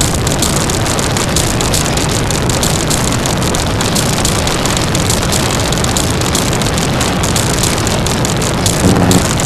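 Harsh noise music: a loud, unbroken wall of distorted noise with fine crackling in the highs, swelling briefly with a low pitched drone just before the end.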